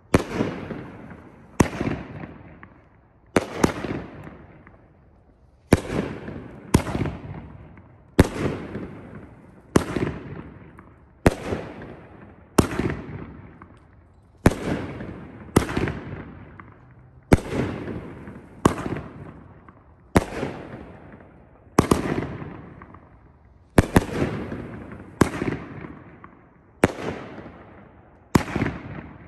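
A 500-gram, 25-shot consumer firework cake firing its shots in sequence: a sharp bang about every second and a half, each trailing off in a long echo before the next.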